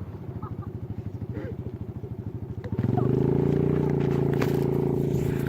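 A small engine idling with a fast, even putter, then revving up about three seconds in and holding a higher, steadier note.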